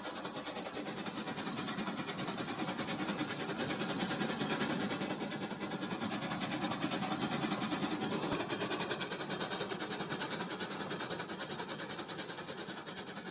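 Rail King plastic toy train running along plastic track, its small motor whirring with rapid, even clicking from the wheels. It grows louder as the train passes close and fades as it moves away.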